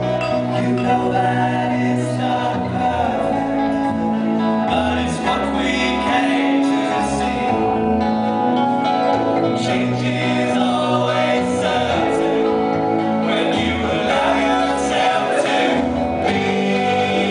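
A small rock band playing live: electric guitar, bass guitar and keyboard over a steady bass line, with a voice singing.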